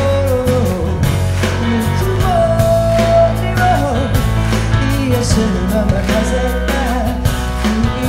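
A band playing live rock-blues, with a steady bass line, regular drum hits and a melody line that slides and bends between notes.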